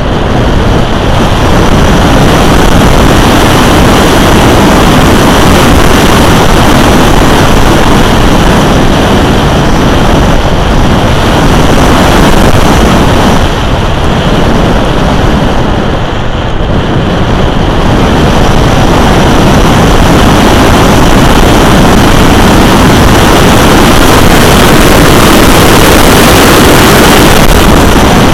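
Loud, steady wind rush from the airflow over the onboard camera's microphone on a radio-controlled plane diving, its airspeed building from about 20 to 45 mph.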